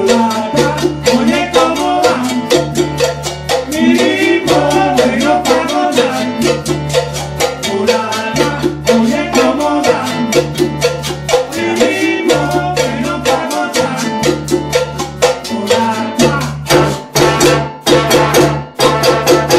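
Latin band playing a salsa groove: timbales, congas, bongos and cowbell over a repeating bass figure, with a melody line above. In the last few seconds the melody drops away and the percussion carries on.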